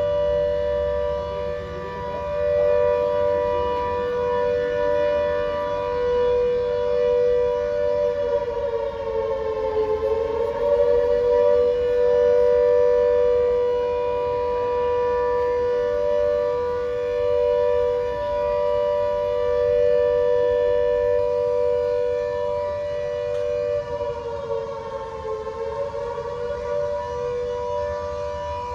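Civil defence air-raid warning siren wailing on a steady two-tone pitch. The pitch dips and climbs back twice, about ten seconds in and again about twenty-five seconds in. It is sounding the air-raid alert for a blackout mock drill.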